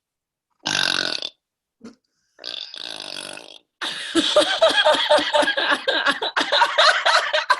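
A woman's long, forced burp that stops and starts again twice: a short burst, a quieter stretch, then a long rattling belch of nearly four seconds.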